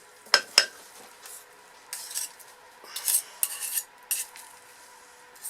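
A utensil clicks twice against a container, then scrapes and stirs in short strokes while mixing clay colourant into hot process soap batter.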